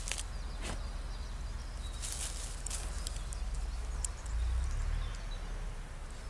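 Czechoslovakian wolfdog digging with its paws in soil and dry leaves: short bursts of scratching and scrabbling with scattered clicks, strongest about two seconds in. A low rumble comes in a little past the middle.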